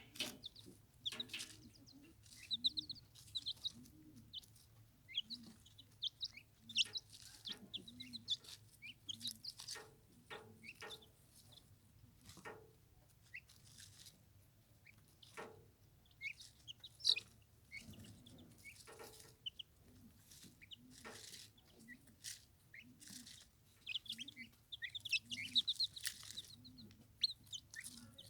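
Young turkeys (poults) peeping: short high chirps in quick runs, over soft low clucking calls repeating about once a second, with scattered sharp clicks.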